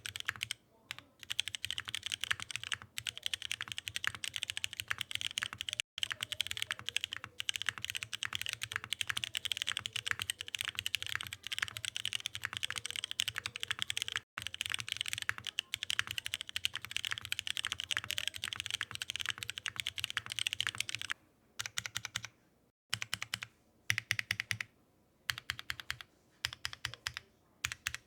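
Fast continuous typing on a Cruelworld 88 mechanical keyboard with Cherry MX2A Brown tactile switches, DCS Windbreaker keycaps and a polycarbonate plate without foam. About 21 s in the typing breaks off briefly, then carries on as slower, scattered keystrokes.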